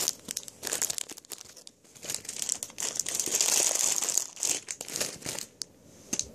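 Crinkly plastic packaging of a Mega Bloks toy set being handled and opened, crackling in irregular bursts, most continuous in the middle.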